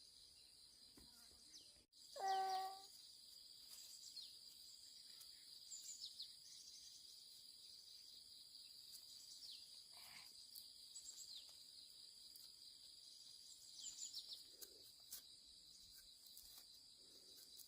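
Faint countryside ambience: a steady high insect drone with scattered short bird chirps. About two seconds in comes one brief, louder pitched call.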